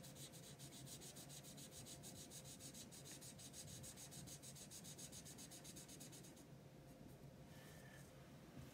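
Faint scratchy rubbing of a marker nib on paper in quick, even back-and-forth strokes while colouring in a block of colour, stopping about six and a half seconds in.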